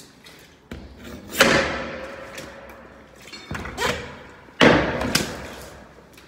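A Halligan bar's adz knocking and scraping against a metal door as it is forced toward the gap between door and jamb to make a purchase point. There are two loud bangs, about a second and a half and four and a half seconds in, each leaving the door ringing, with lighter knocks between them.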